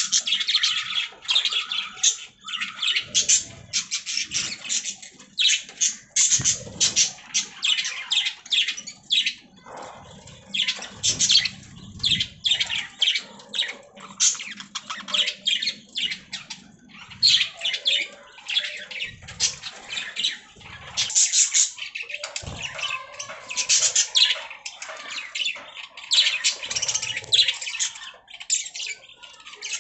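Budgerigars chirping and chattering in quick, dense runs of calls, with a few soft low thumps among them.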